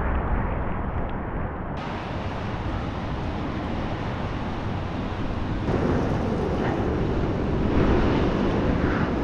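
Wind blowing across an action camera's microphone high up on a tower crane: a steady rushing rumble that turns hissier about two seconds in.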